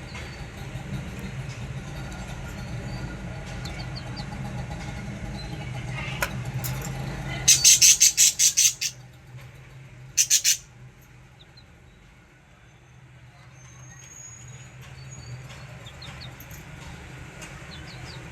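Caged budgerigars chirping, with a loud run of about seven rapid sharp calls a little past the middle and two more shortly after, over a low steady hum that fades halfway through.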